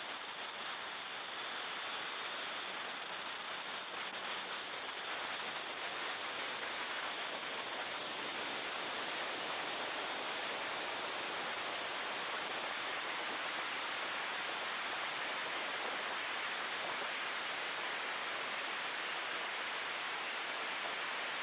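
Steady rushing roar inside a BMW E36 M3 race car's cabin, with no distinct engine note standing out, getting slightly louder after about eight seconds.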